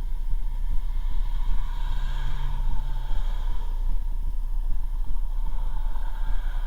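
Low, steady road and engine rumble inside the cabin of a 2008 Toyota 4Runner V6 on the move, with wind coming in through an open window.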